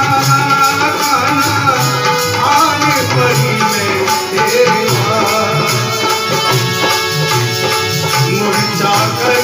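Bhajan music: a naal drum keeps a steady, repeating hand-drum beat under long held melodic notes.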